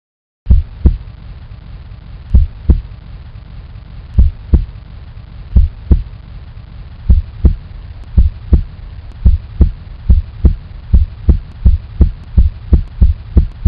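Heartbeat sound effect: deep double thumps, lub-dub, over a low hum. The beats start slow and speed up steadily.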